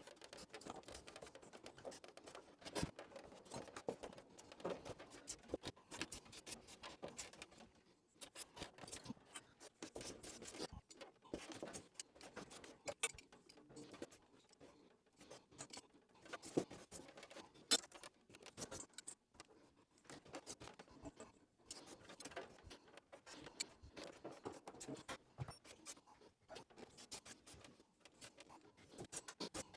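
Faint, irregular scraping and clicking of a metal pipe being cut by hand.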